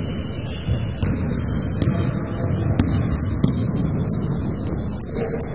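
Basketball sneakers squeaking on a hardwood gym floor in short, high squeaks, with thumps of the ball and players' feet during play.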